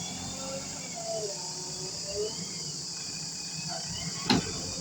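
Bulldozer's diesel engine running with a low, steady hum beneath a steady high chirring of crickets, with faint distant voices. A single sharp knock about four seconds in.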